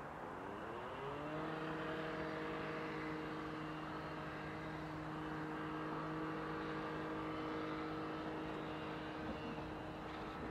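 Rhaetian Railway Allegra electric multiple unit approaching, its traction drive whining: the pitch rises over the first second and a half, then holds steady and fades just before the end, over the rumble of the wheels on the track.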